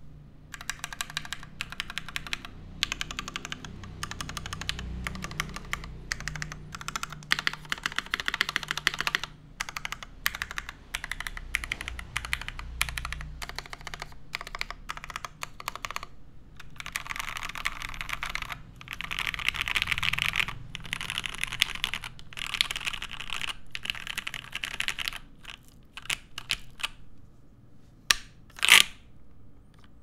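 Fast typing on a mechanical keyboard: lubed Gateron Mink linear switches in an O-ring-mounted jjw Cloudline TKL with an aluminium plate and GMK keycaps, in runs of rapid keystrokes with brief pauses. One louder knock comes near the end.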